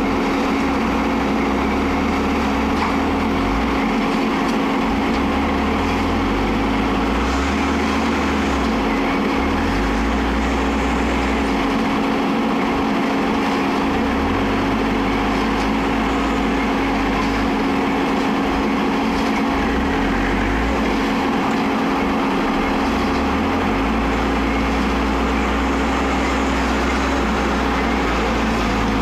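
Diesel engine of a concrete mixer pump running steadily, with a constant hum over the engine noise and a low rumble that swells and fades every few seconds.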